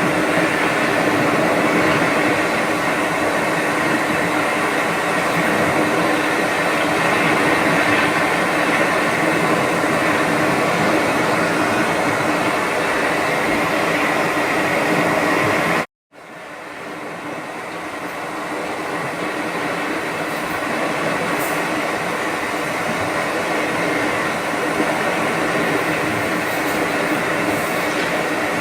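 Steady droning hum: a continuous rushing noise with several constant tones in it. About halfway through it cuts out abruptly for a moment, then fades back up over a few seconds.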